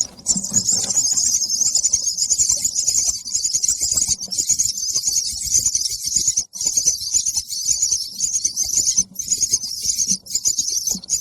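Baby bird chirping to be fed: a rapid, high-pitched begging call that runs on almost without a break, pausing briefly every two to three seconds.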